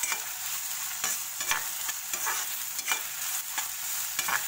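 Chopped onion and capsicum sizzling in ghee and oil in a kadhai, stirred with a spatula that scrapes the pan every half second or so over a steady frying hiss.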